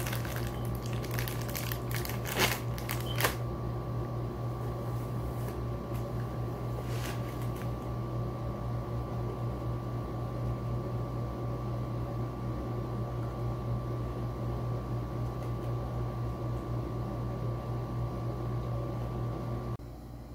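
Rustling and a few sharp clicks in the first few seconds as a small object is fiddled with in the hands, over a steady low hum with a faint high tone that runs throughout.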